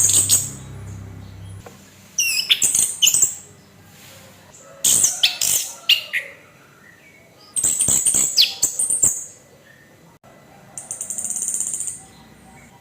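Orange-headed thrush singing its rough-style song: short loud phrases of quick, high whistled and scratchy notes with pauses between them, then a buzzy, rattling trill near the end.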